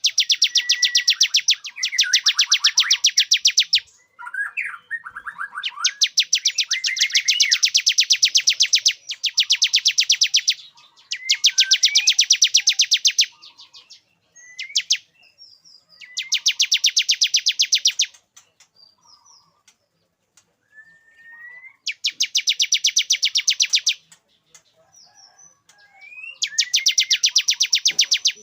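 Male bar-winged prinia (ciblek) singing: bouts of a loud, very fast, buzzy trill, each about two seconds long, repeated with short pauses. Fainter rising chirps come in between. This is the male's lure song, meant to bring females into breeding condition.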